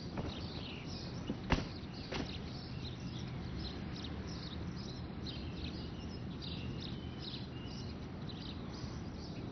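Birds chirping over a quiet outdoor ambience, with a sharp click about a second and a half in and a smaller click shortly after.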